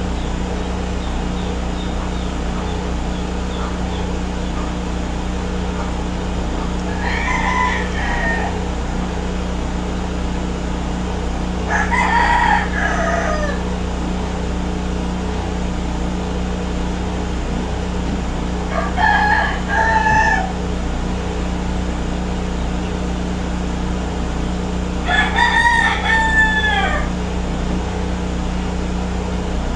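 A rooster crowing four times, about every six seconds, each crow about a second and a half long and dropping in pitch at the end, over a steady low hum.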